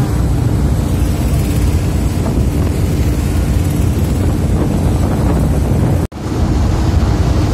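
Boat engine running at a steady drone, with wind buffeting the microphone. The sound briefly cuts out about six seconds in.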